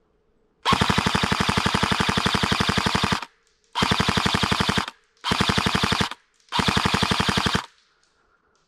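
Rapid automatic fire in four bursts: one of about two and a half seconds, then three of about a second each, every burst starting and stopping abruptly.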